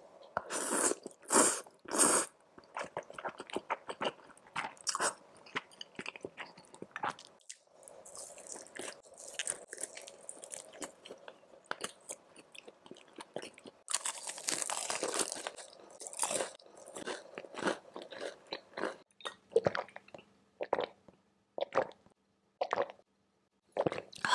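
Close-miked eating sounds: a rapid run of crisp crunching bites and chewing on crispy fried snacks, with a few longer hissy stretches of noodles being slurped.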